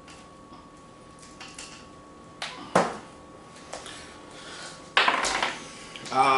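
A few sharp knocks and clicks, then a six-sided die thrown onto a wooden kitchen table, rattling for about half a second about five seconds in; a short vocal sound follows at the very end.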